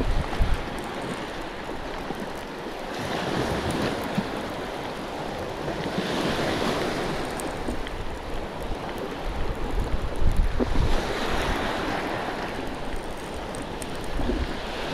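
Sea waves breaking and washing onto a rocky, shingle shore, swelling about every three to four seconds, with wind rumbling on the microphone.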